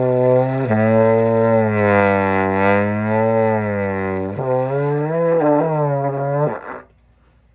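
Bass trombone playing long, low sustained notes. One held tone drops a little in pitch just under a second in and wavers slowly. Just over four seconds in it steps up to a slightly higher note with a few quick wobbles, then stops about a second before the end.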